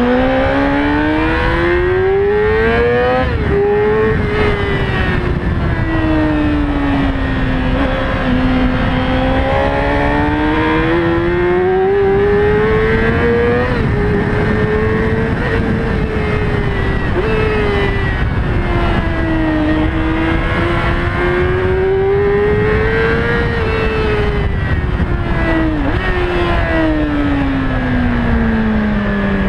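Yamaha R6 inline-four sport-bike engine, heard mainly through its intake with a performance air filter, running under way. Its pitch climbs and falls over several seconds at a time, with a few sudden drops where the revs fall at a gear change.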